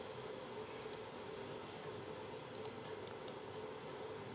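Computer mouse clicks: a few short, sharp clicks, each a quick press-and-release pair, about a second in and again at about two and a half seconds. A steady low hum and hiss runs under them.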